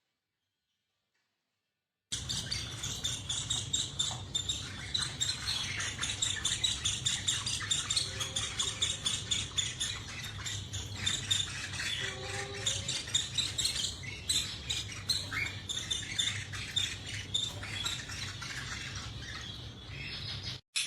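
Parrots chirping rapidly and without pause, shrill and dense, over a low steady hum. It starts abruptly about two seconds in after dead silence and cuts off just before the end.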